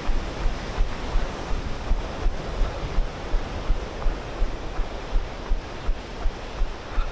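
Steady rush of a fast mountain river, mixed with wind on the microphone, and the runner's footfalls as dull low thumps about twice a second.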